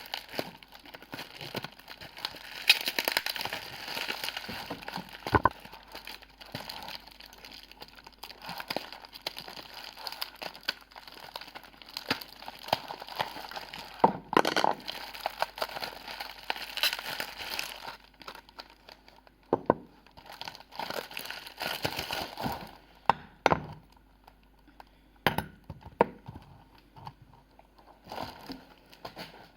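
Packaging from a perfume unboxing being handled: plastic or paper wrapping crinkling and tearing in irregular bursts, with scattered sharp clicks and knocks.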